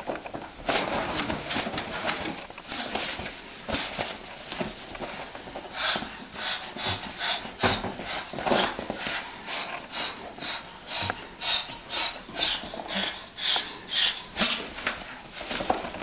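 Moluccan cockatoo hissing and huffing at a cat in harsh, breathy bursts. From about six seconds in they come in a steady run of short blasts, roughly two or three a second.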